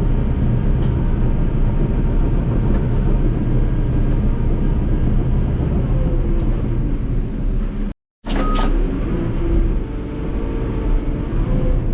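Diesel engine of heavy earthmoving equipment running steadily under load, heard from the operator's seat. The sound cuts out for a split second about eight seconds in, then the engine picks up again.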